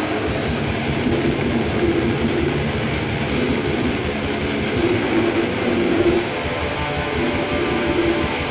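A live metal band playing loud: distorted electric guitars and bass riffing over fast drums and cymbals.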